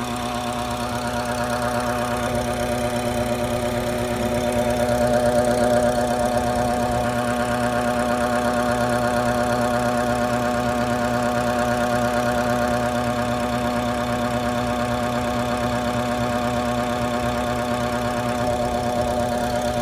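BMW N55 3.0-litre turbocharged inline-six running steadily near idle, with a slight swell a few seconds in, and carrying an odd extra noise that was traced to a faulty boost solenoid.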